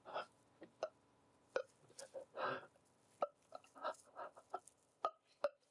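A voice actor performing a character's ragged breathing at a studio microphone: a run of short, sharp gasps ('haa', 'ahhaa'), with one longer breathy gasp about halfway.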